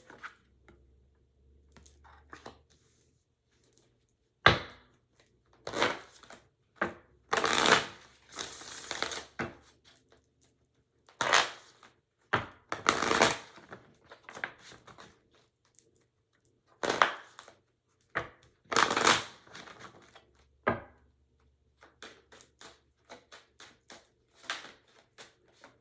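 Tarot cards being shuffled and handled, heard as a series of short papery bursts, about a dozen, with pauses between them.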